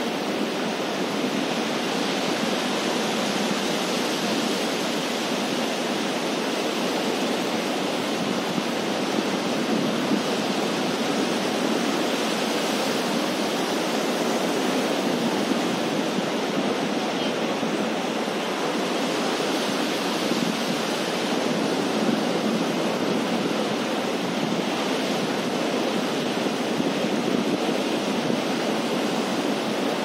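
Ocean surf breaking and washing up a sandy beach, a steady unbroken rush of waves.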